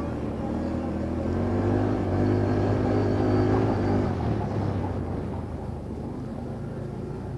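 ATV engine running under load. It revs up louder for a couple of seconds around the middle, then eases back.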